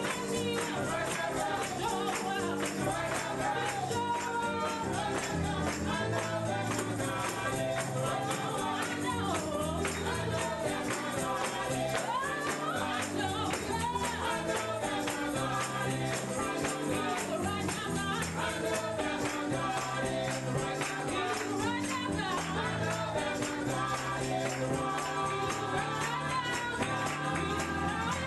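Gospel music: voices singing a melody over steady low bass notes and a tambourine shaken in a fast, continuous rhythm.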